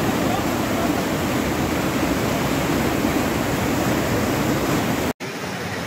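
Rushing floodwater of a fast, swollen mountain river: a steady, dense water noise. It cuts out for an instant near the end and then carries on slightly quieter.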